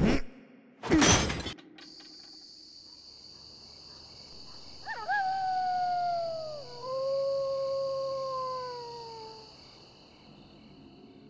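A pickaxe strikes a metal padlock with one loud clang about a second in. Then, over a steady high hiss, a wolf howls in one long call in two phrases, each sinking in pitch, which fades out toward the end.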